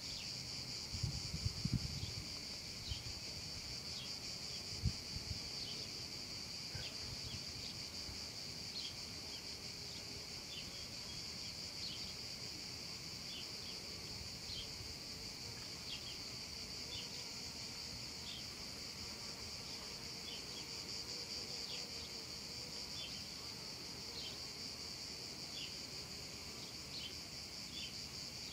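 Cicadas singing in a steady, high-pitched chorus, with short higher chirps dotted over it about once a second. A few low bumps come in the first five seconds.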